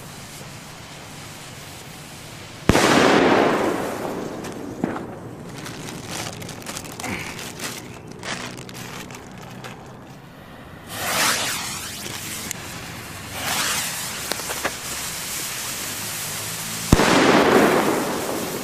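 Trueno N°6 Especial firecrackers going off: a sharp bang about three seconds in and another near the end, each ringing out for about a second. Between them, around the middle, there is a short fizzing hiss.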